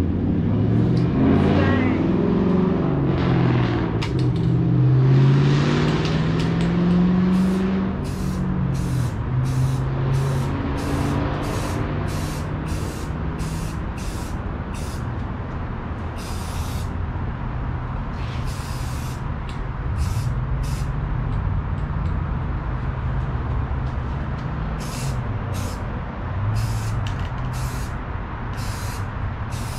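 Paint spray gun hissing in short repeated bursts, about one a second, over the steady hum of an air compressor motor, whose pitch wavers and rises during the first several seconds.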